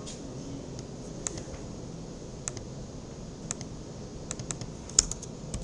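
Computer keyboard keystrokes: a few scattered single clicks, then a quicker run of keys a little past four seconds in.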